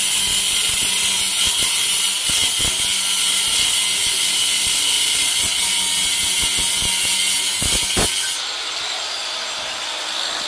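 Battery-powered Bauer cutting tool running and cutting through steel angle iron: a loud, steady hiss over a low motor hum, with scattered knocks, that stops abruptly about eight seconds in.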